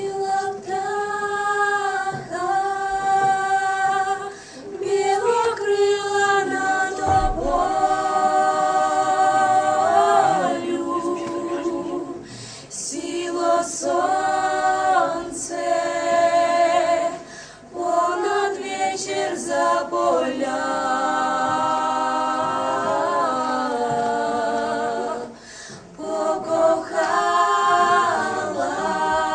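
A group of voices singing a cappella in harmony, holding long chords that change every second or two, with brief pauses between phrases.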